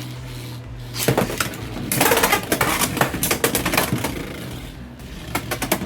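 Two Beyblade X spinning tops, Hells Chain and Black Shell, clashing in a stadium: a rapid clatter of sharp plastic-and-metal clacks, densest from about two to four seconds in and thinning near the end.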